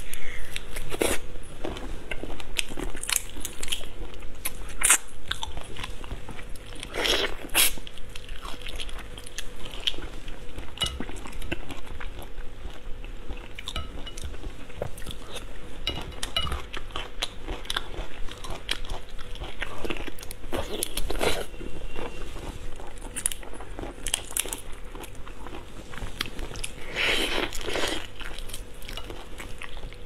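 Close-miked biting and chewing of prawns, with crunching and a constant run of irregular mouth clicks.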